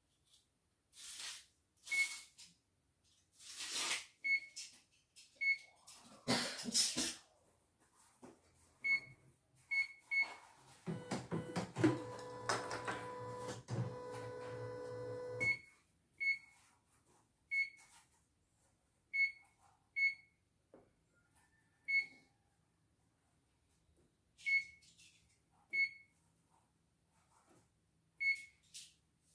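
CNY E900 embroidery machine's touchscreen beeping at each key press: about fifteen short single beeps a second or two apart. Knocks and rustles in the first few seconds, and a steady mechanical hum from the machine for about four seconds in the middle.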